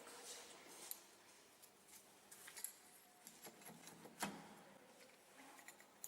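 Near silence, with a few faint, scattered clicks and taps, the clearest about four seconds in.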